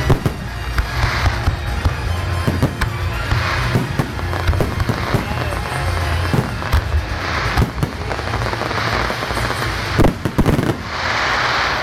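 Aerial firework shells bursting one after another, sharp bangs mixed with stretches of crackling, with a dense cluster of the loudest bangs about ten seconds in.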